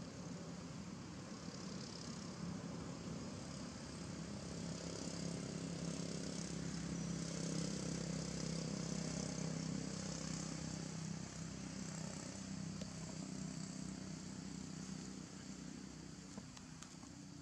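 Distant engine drone that slowly swells to its loudest about halfway through, then fades away, over a steady high hiss.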